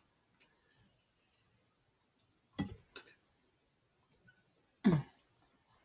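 A few short clicks and cracks of boiled snow crab leg shells being broken and picked apart by hand, with brief eating noises, over a quiet room.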